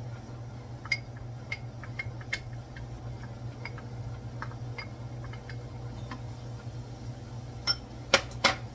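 Wooden spoon tapping and scraping chopped onion out of a small glass bowl into a frying pan: light scattered clicks of wood on glass, with a few louder knocks near the end.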